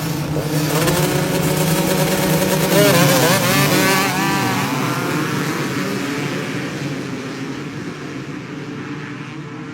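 Two-stroke motocross bike engines racing at high revs, their pitch wobbling up and down about three to four seconds in, then fading steadily as the bikes pull away.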